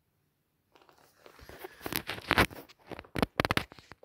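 A handheld camera being moved, making rustling and clicking handling noise. It starts after a moment of silence and comes in quick runs about two and three seconds in.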